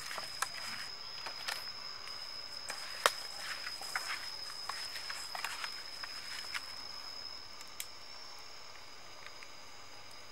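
A hand rubbing and kneading raw beef chunks against a stainless steel pot: small wet squishes, clicks and scrapes, with a sharp tap about three seconds in, stopping about seven seconds in. A steady high-pitched insect drone runs behind.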